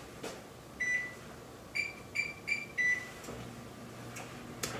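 Oven's digital control panel beeping as the preheat temperature is keyed in: one beep, then three quick beeps, then a slightly longer beep. A faint low hum starts near the end.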